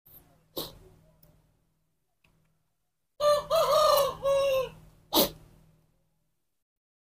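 A rooster crowing, one multi-syllable crow about a second and a half long, starting about three seconds in. A short sharp puff of noise follows just after it, and a fainter one comes near the start.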